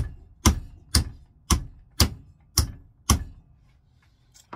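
Lump hammer striking a grey polypropylene catapult fork held in a vise: seven sharp blows at about two a second, stopping about three seconds in, with the fork not breaking. A couple of light clicks follow near the end.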